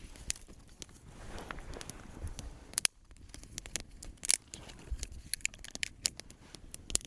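Wood campfire crackling, with irregular sharp snaps and pops from the burning wood.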